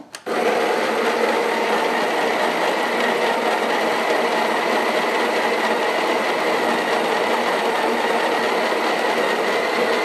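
The Breville Barista Express's built-in stainless steel conical burr grinder, switched on by a push of the portafilter, runs steadily with a constant whirring hum as it grinds coffee beans for a single shot. It starts a moment after a short click.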